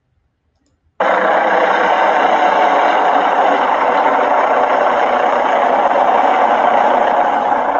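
Helicopter hovering low overhead: a steady, loud rush of rotor and engine noise that cuts in suddenly about a second in.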